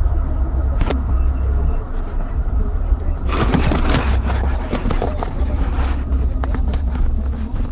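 Steady low road and engine rumble inside a minivan's cabin. From about three seconds in there are a few seconds of rustling, scraping and knocking as the camera is handled against the microphone.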